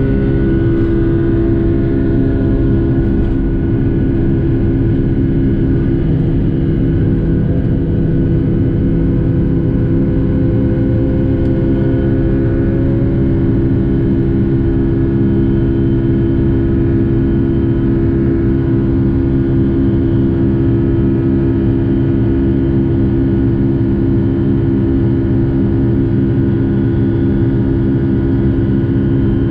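Rolls-Royce RB211 engines of a Boeing 757-200 heard from the cabin, a steady loud drone with several held buzzing tones. A faint higher tone slowly rises about a third of the way in.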